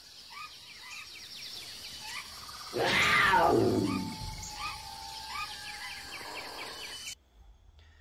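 Intro sound effect: a big cat roars once for about a second and a half, falling in pitch, over a bed of bird chirps and a steady high hiss. The whole mix cuts off suddenly about seven seconds in.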